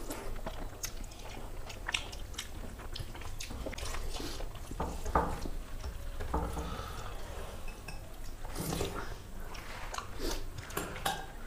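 Close-up eating sounds: chewing and wet mouth noises, with scattered small clicks and scrapes from fingers mixing rice and a serving spoon against the plates and bowl.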